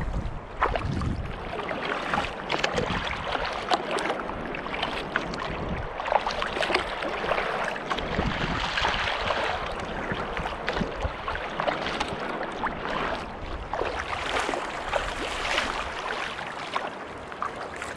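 Water splashing and sloshing around a Prijon Seayak 500 LV sea kayak paddled through choppy waves, swelling and easing every second or two with the strokes and the chop. Wind rumbles on the microphone now and then.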